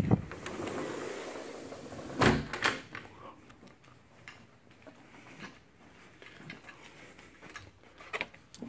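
A sliding glass patio door is pulled shut, closing with a thud about two seconds in and cutting off the outdoor noise. Afterwards there are only a few faint knocks in a quiet room.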